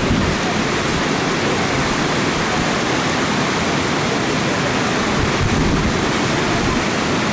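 Steady rush of water flowing and churning past rocks, an even noise with no distinct strokes.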